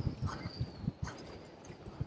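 Wind and rough-sea noise around a small open boat, with irregular low knocks and thumps, a few a second.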